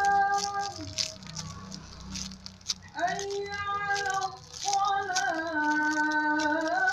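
Background music: a high sung melody of long held notes that step in pitch, over a rattling shaker beat, thinning out briefly about a second in before the melody returns.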